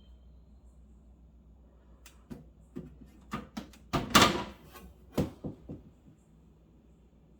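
Refrigerator door being handled: a run of clicks and knocks starting about two seconds in, the loudest about four seconds in, over a low steady hum.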